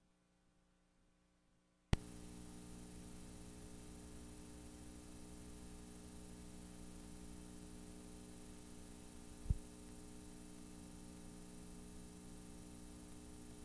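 Blank videotape playing past the end of a recording: a click about two seconds in, then a steady faint hiss with mains hum. A single low pop about halfway through.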